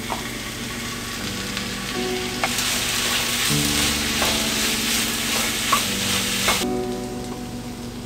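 Sliced mushrooms and onions sizzling in a stainless steel frying pan while being stirred with a wooden spatula, which clacks against the pan a few times. The sizzle grows louder a couple of seconds in and stops abruptly near the end.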